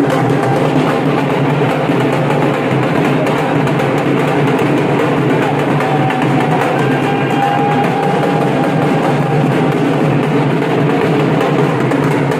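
Dhol drum played live, beating out a dance rhythm.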